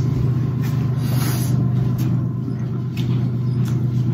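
A steady low hum under a few sharp clicks and crackles from snow crab legs being cracked and eaten close to the microphone.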